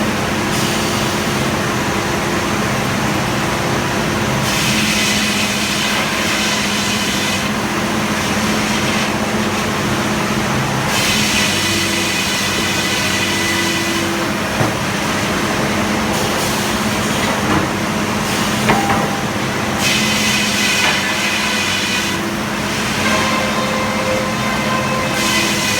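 Frick circular sawmill running with a steady drone, its blade whining as it cuts through a log four times, each cut lasting two to three seconds.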